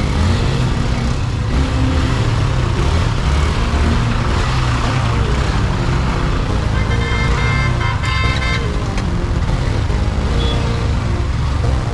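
Road and traffic noise from a motorcycle ride, with background music. A vehicle horn sounds for about a second and a half around seven seconds in.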